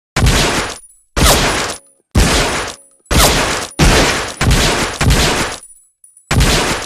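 Seven shots from an M1911A1 .45 ACP pistol, each with an echoing tail. The first three come about a second apart, the next three faster, and the last follows after a pause near the end.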